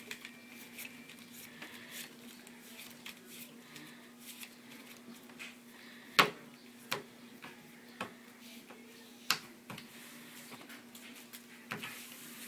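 Scattered clicks and taps from trading cards and decks being handled on a table, with one sharp tap about six seconds in, over a steady low hum.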